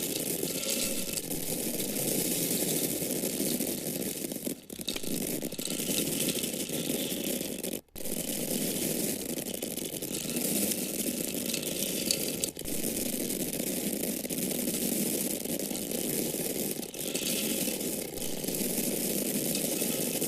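Corn grains falling in a steady, continuous stream of small hits, with a short dip a little over four seconds in and a brief break about eight seconds in.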